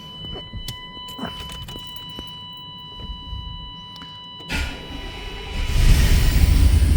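1994 Chevy K1500 pickup's throttle-body-injected engine cranked by the starter about four and a half seconds in, catching after about a second and then running steadily. It starts now that a missing engine ground has been repaired, the cause of its crank-no-start.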